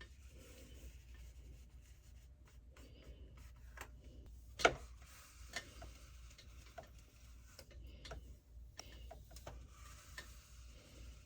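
Faint, scattered clicks and light taps over a low steady hum, with one sharper click about four and a half seconds in.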